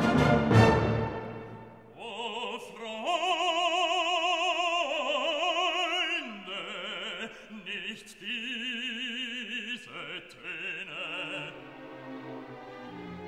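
Background classical music: a full orchestra with one sharp hit at first, then from about two seconds in an operatic voice singing sustained notes with wide vibrato over the accompaniment.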